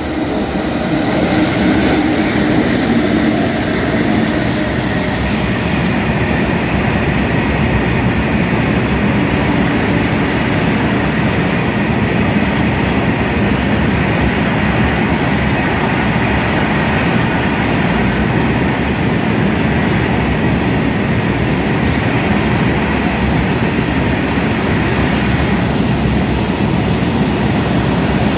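Freight train of BOBYN hopper wagons hauled by twin WAG-7 electric locomotives passing at speed: a loud, steady noise of steel wheels running on the rails. A run of sharp clicks comes a few seconds in.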